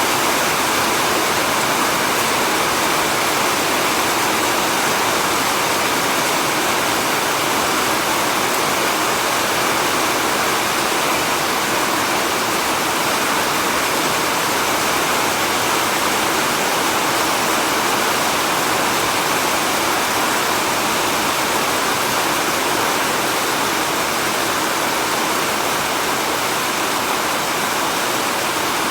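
Heavy rain falling steadily in a rain forest: a dense, even hiss of water that does not let up.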